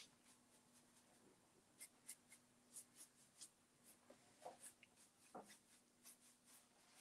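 Faint, short taps and scrapes of a paintbrush dabbing wet paint onto the side of a metal file cabinet, over a faint steady hum.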